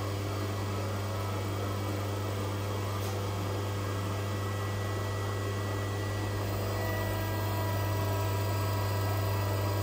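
Steady low machine hum with a few faint steady tones above it, unchanging throughout.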